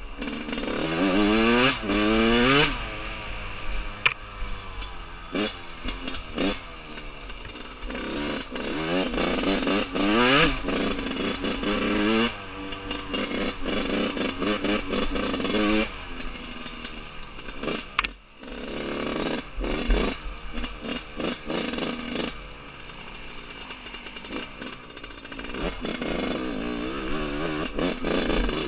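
Yamaha YZ125 two-stroke single-cylinder engine revving up and falling back again and again as the bike is ridden hard over rough ground, with short breaks where the throttle is shut.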